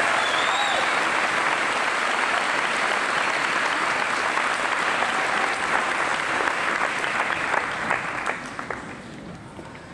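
A large audience applauding, many hands clapping at once, dying away about eight seconds in.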